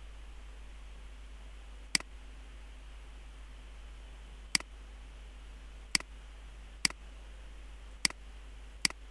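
Six sharp computer-mouse button clicks, irregularly spaced, each with a faint second click just after, over a steady low hum.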